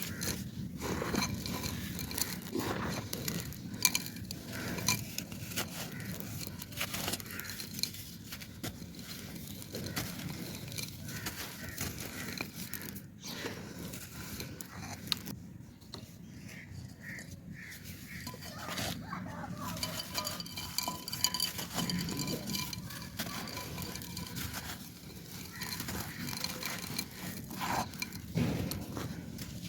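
Dry clay pot crumbling and being crushed into sandy grit, a continuous run of irregular crunchy crackles and scrapes.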